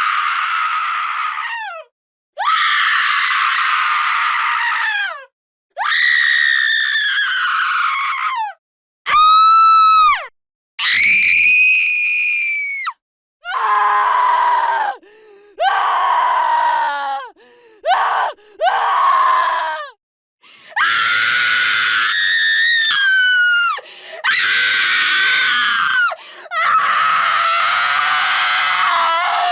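A woman screaming: a run of about a dozen separate high-pitched screams, each one to three seconds long, with short gaps between them. Several slide down in pitch as they end.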